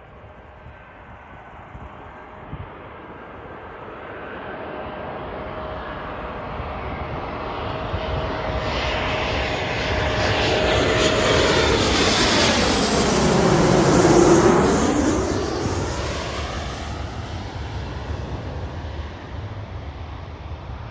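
Jet airliner flying past. Its engine noise builds steadily, peaks about two-thirds of the way through, then fades, with a sweeping, phasing sound as it passes closest.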